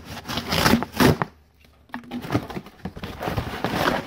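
Cardboard shipping box being handled and torn open: irregular scraping, tearing and crinkling noises, with a brief quiet pause about a second and a half in.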